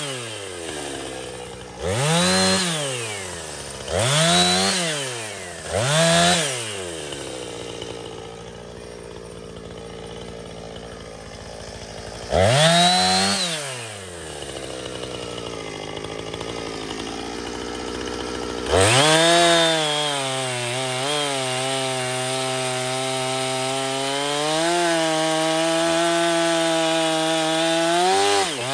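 Gas chainsaw idling, blipped to high revs and back four times, then held at full throttle for the last third with its pitch wavering as it cuts into a log.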